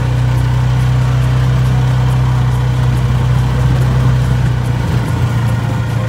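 Arctic Cat off-road vehicle's engine running with a steady, even drone as it drives along the plowed driveway. The engine note shifts slightly about five seconds in.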